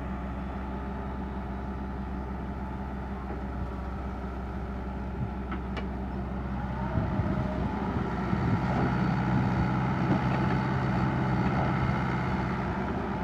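Komatsu PC60-5 excavator's diesel engine running steadily, its note growing louder and busier about seven seconds in as it takes on load.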